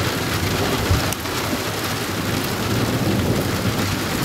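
Heavy rain pouring steadily, with a low rumble underneath and a few sharp drips close by, one about a second in.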